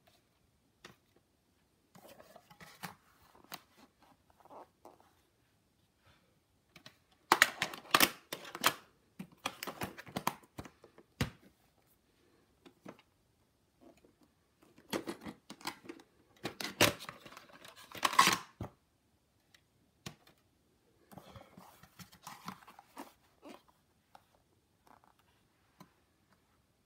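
Hard plastic VHS clamshell cases and cassettes being handled: several bursts of clattering, sharp clicks and scraping, with quiet gaps between.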